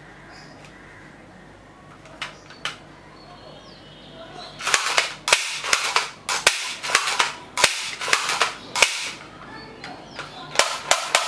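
Battery-powered plastic toy rifle playing its electronic gunfire sound effect: after a couple of faint clicks, a loud run of rapid shots starts about four and a half seconds in and goes on in short bursts.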